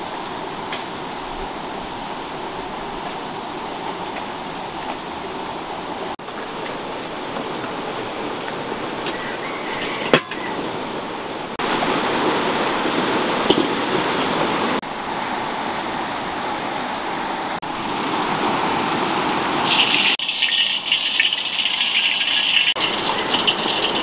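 Steady rush of a shallow river flowing over stones, changing in level at several cuts. Near the end a brighter hiss takes over for a few seconds.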